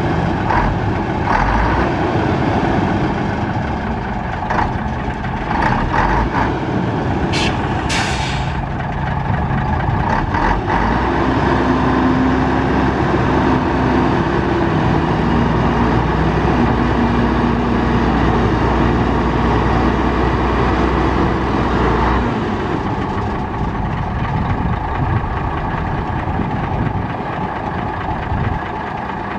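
1973 Mack RL600L dump truck's diesel engine running while the dump bed is raised on its hydraulic hoist. A short, sharp hiss of air comes about eight seconds in, and the engine note grows steadier and fuller from about eleven seconds until about twenty-two.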